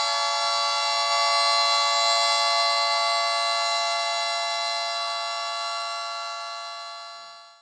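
Hurricane Head warning siren holding a steady chord of several tones after winding up, then dying away over the last two seconds.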